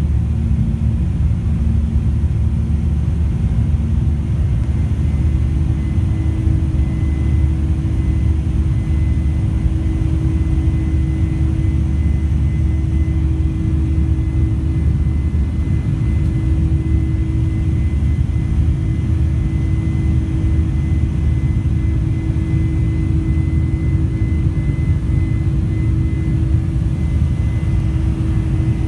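Cabin noise of a Boeing 747 climbing after takeoff: a steady deep rumble from its GE jet engines and airflow. A humming tone and a thin high whine come in about six seconds in.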